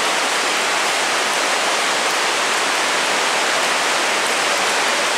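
Heavy rain on the roof of a covered shopping arcade: a steady roar with no break.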